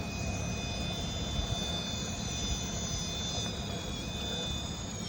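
Electric motor of an RC rock crawler whining at a steady high pitch, with a slight dip about four seconds in, over a constant low rumble.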